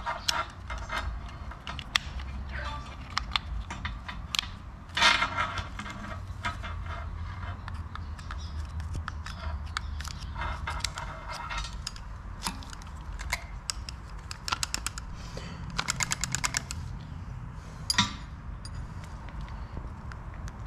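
A steel screwdriver tapping and scraping against a 727 transmission's aluminium valve body, working the throttle valve out of its bore a little at a time: scattered small metal clicks, with a quick run of rattling clicks about three-quarters of the way through.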